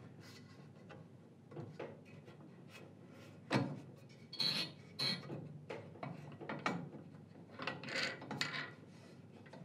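Bandsaw rip fence being micro-adjusted square to the blade and locked off on its rail: scattered light knocks, clicks and scrapes of metal parts, a couple of them short and high-pitched about halfway through.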